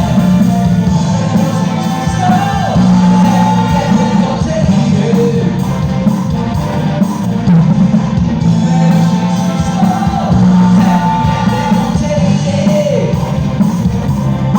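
Live band music with a singer: a steady, strong bass line under a sung melody that slides between notes.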